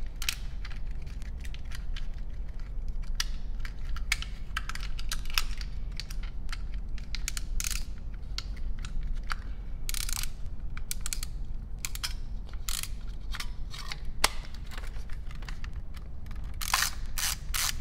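Irregular clicks, taps and short scrapes from handling a Bell & Howell / Canon Dial 35 camera, its metal back cover open and then shut.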